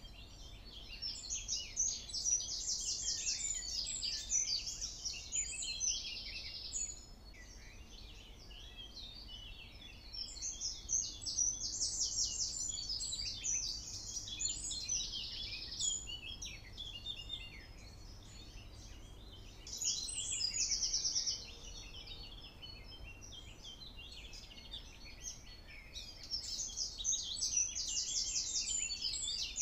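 A songbird singing: four phrases of rapid, high trills and chirps, each lasting a few seconds, with pauses of a few seconds between them.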